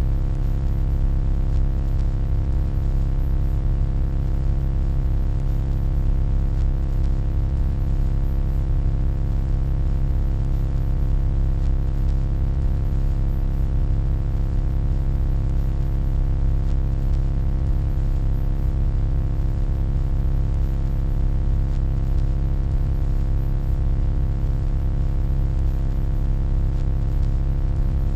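Steady electronic hum: a deep low drone with a stack of unchanging tones above it and a thin, faint high whine, holding one even level throughout.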